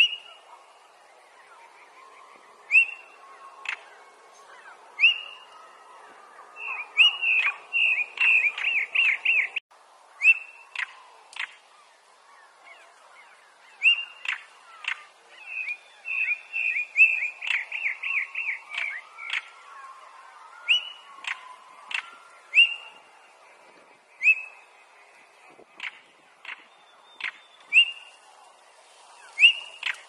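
European stonechat calling: short clear whistled notes mixed with hard ticking clicks, the bird's typical alarm call. Twice the notes come in fast chattering runs, about a quarter of the way in and again around the middle.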